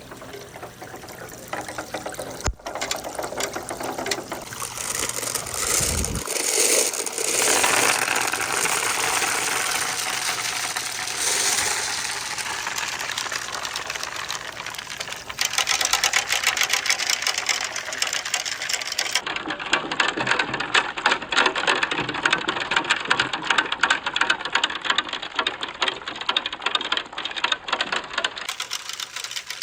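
Glass marbles rolling and rattling along a wooden marble-run track, a continuous fast clatter of clicks that gets louder about halfway through.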